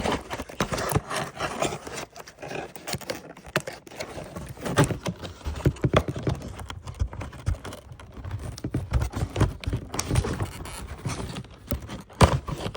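A cardboard toy box being handled and pulled open, with irregular knocks, clicks and scrapes throughout.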